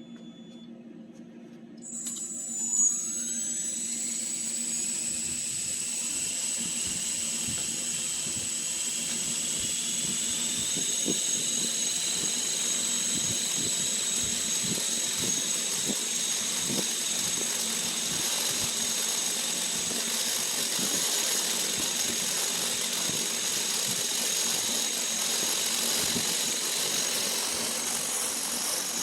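Battery-powered 1:4 scale coaxial RC helicopter spooling up about two seconds in with a steeply rising whine, then running steadily with a high motor whine over the rush of its belt-driven rotors. It runs on a 3-cell 3000 mAh battery that the owner finds too heavy, and he hears the rotors as overworking.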